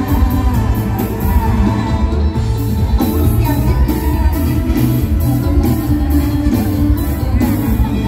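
A mor lam troupe's live band and singer playing loud over a concert PA. A singer's voice rides over a strong bass and a steady, cymbal-like beat.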